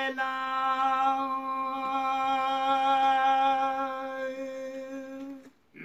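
A man singing unaccompanied, holding one long note at a steady pitch for about five and a half seconds; it fades and breaks off near the end.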